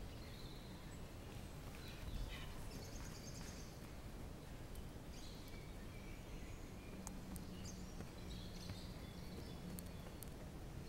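Birds singing in woodland, short chirps and warbles scattered throughout, over a steady low background noise.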